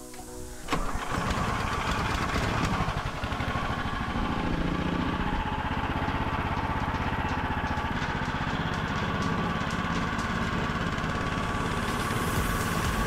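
Small engine of a tracked motorized snow tow picking up sharply about a second in, then running steadily under load as the tow drives over snow.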